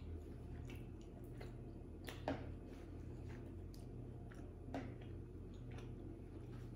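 Close-miked chewing of a mouthful of pepperoni pizza: soft, scattered wet mouth clicks, a couple of them louder about two seconds in and near five seconds, over a low steady hum.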